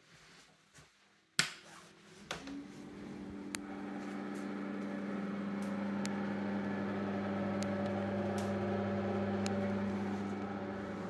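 A switch clicks about a second in, then a bathroom extractor fan starts up: a steady humming drone that builds over a few seconds and keeps running.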